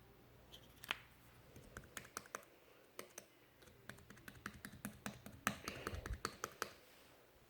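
Ivory-coloured slime being pressed and worked by hand, giving a run of small, irregular clicks and pops that grow denser about four to five seconds in.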